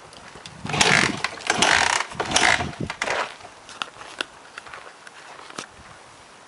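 2006 Suzuki DR-Z125 dirt bike being kick-started from cold. From about one to three seconds in, its small single-cylinder engine turns over in a few short, noisy bursts but does not catch, a sign of the bike's failure to start. Light clicks and rattles follow.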